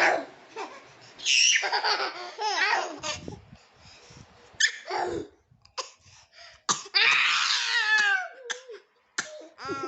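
Small child laughing hard in several bursts of belly laughter, each burst sliding down in pitch, with short breaks between them.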